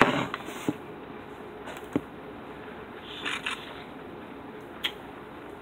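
A few soft clicks, three in all, and a brief rustle about halfway through, over a quiet room hiss: small handling noises.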